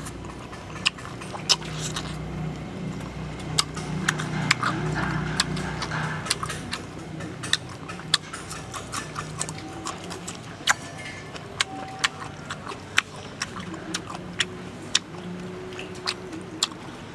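A person eating chicken with their hands close to the microphone: wet chewing and lip smacks, irregular sharp smacks about twice a second, over a low steady hum.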